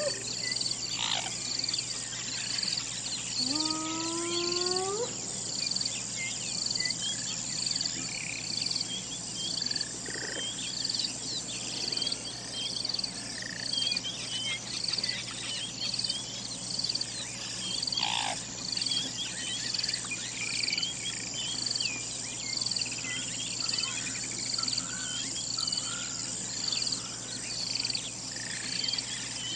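A hyena gives one howl about four seconds in, a call that rises in pitch. Under it, crickets chirp steadily in an even rhythm, with scattered birdsong throughout.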